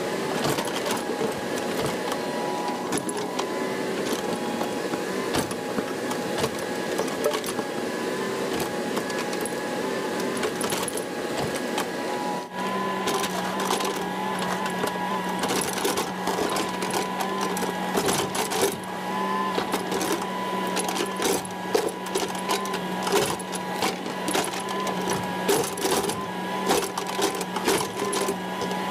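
CAT 308 mini excavator running and working, a steady engine and hydraulic drone with frequent clanks and knocks from the machine. About twelve seconds in, the sound changes abruptly and a lower steady tone comes in.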